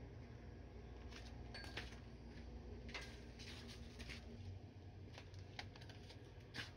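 Quiet outdoor background with scattered faint clicks and rustles, and a slightly sharper click near the end. The electric hedge trimmer is not running.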